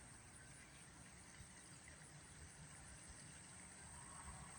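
Near silence: faint outdoor background noise with no clear siren tone.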